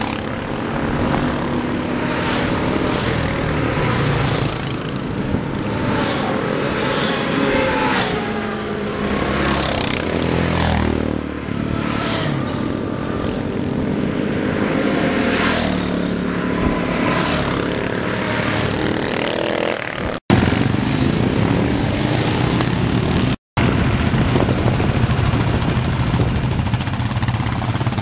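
Sport quads (ATVs) passing one after another, each engine swelling and then dropping in pitch as it goes by. About twenty seconds in, two brief silent gaps, then a closer, steadier sound of many quad engines running together.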